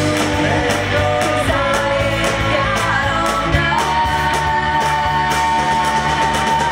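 Rock band playing, with female singing, drums and electric guitar. About halfway through the bass drops out and one long high note is held to the end.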